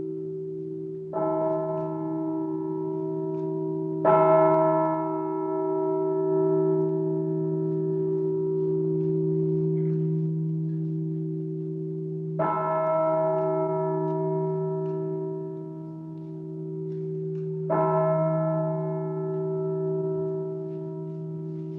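A large bell tolled by hand, struck four times at uneven intervals, about 1, 4, 12 and 18 seconds in. Each stroke rings on in a long decay of several tones, with a deep hum that carries through the gaps between strokes.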